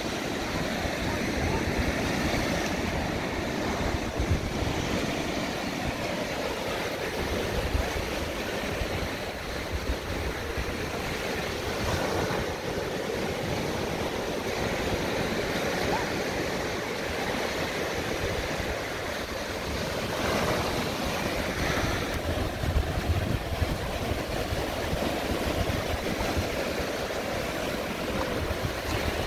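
Gulf surf breaking and washing up the beach in an unbroken hiss, with wind rumbling on the phone's microphone.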